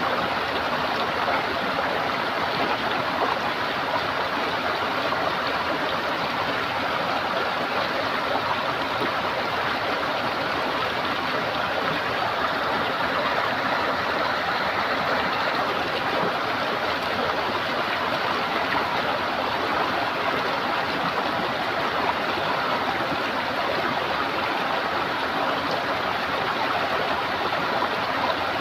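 Running water gurgling steadily, an even rushing with no breaks or changes.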